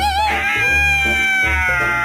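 A dog's long howl that holds one high pitch for about two seconds, then begins to waver up and down near the end, over background music with a low pulsing beat.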